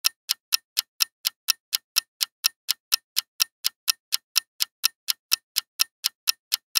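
Quiz countdown-timer sound effect: an even clock-like ticking, about four ticks a second, running while the answer time counts down.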